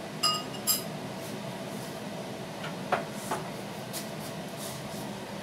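Dishes clinking as they are handled on a kitchen counter: two sharp, ringing clinks in the first second, then a couple of softer knocks about three seconds in, over a steady low hum.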